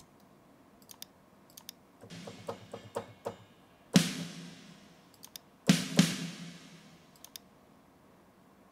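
Computer mouse and keyboard clicks in a stopped mixing session, with a few brief notes and two sharp hits that ring out for about a second each, about four seconds in and just before six seconds.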